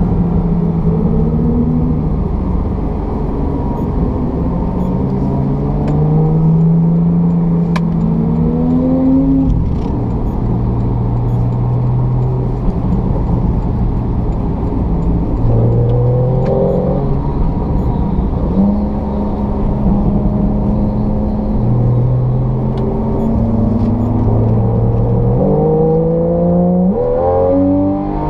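Naturally aspirated 3.8-litre flat-six of a Porsche 911 (991) Carrera GTS heard from inside the cabin under hard track driving, the engine note climbing through the revs and dropping back at each gear change. Near the end come several quick rev blips in a row as it shifts down.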